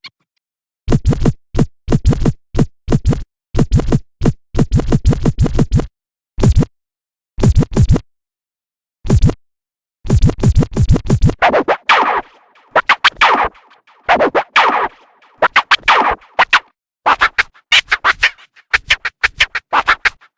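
DJ record scratching: short bursts of rapid stuttering scratches separated by brief silences. From about halfway through come longer back-and-forth scratches that sweep up and down in pitch.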